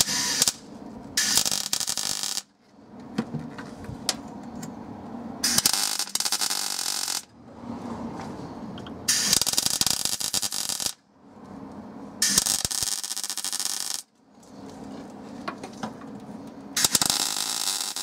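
Electric arc welder tack-welding a small metal patch disc into a hole in a car body panel, in six short bursts of hissing arc, each one to two seconds long and starting and stopping sharply, a few seconds apart.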